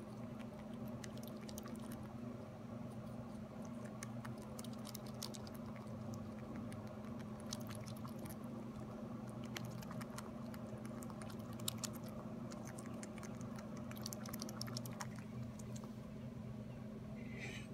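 Young fox squirrel nibbling and chewing a chunk of soft fruit: irregular runs of quick, small, wet clicks, over a steady low hum.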